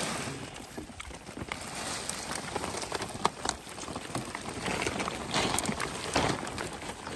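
Wet leaves, twigs, stones and small fish tumbling out of a nylon mesh fishing net onto a plastic tarpaulin: an irregular crinkling patter of many small hits, with a few sharper knocks, the loudest about three seconds in.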